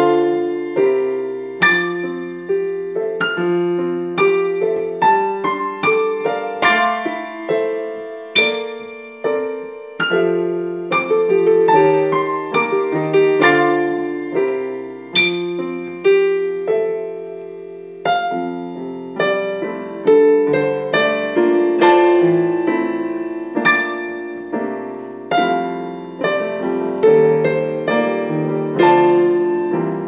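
Digital piano played four hands as a duet: a steady stream of struck notes that ring and fade, a higher melody over lower accompanying notes.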